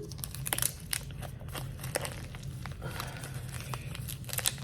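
Packaging being handled and unpacked: irregular crinkling and rustling with scattered small clicks, over a steady low hum.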